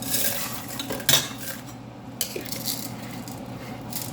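A spoon clinking and knocking against a pot and dishes: a few sharp clinks, the loudest about a second in, over a steady low hum.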